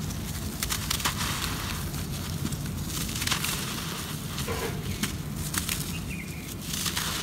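Dry red dirt crumbling and crushing in bare hands: a run of irregular crisp crackles and grainy hissing as the chunks break and powder pours through the fingers.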